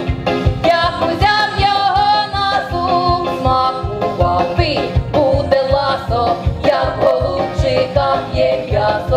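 A group of women's voices singing a lively Ukrainian folk-style song together, over instrumental accompaniment with a steady beat.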